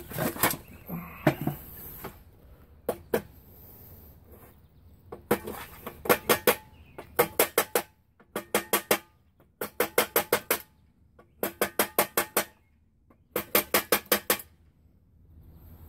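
A wooden block knocking a wheel bearing onto the steel rear axle of a pedal tractor, in about seven quick bursts of four to six ringing knocks each. The bearing is a tight fit being driven home.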